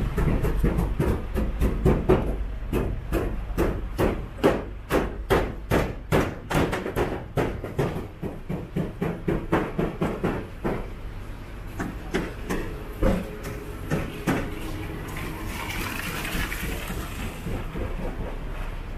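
Repeated hammer blows at a building or demolition site, about three strikes a second, then thinning out and fading after about 11 seconds over steady street rumble.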